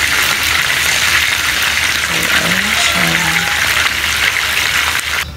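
Fish frying in hot oil: a steady, dense sizzle that cuts off abruptly near the end.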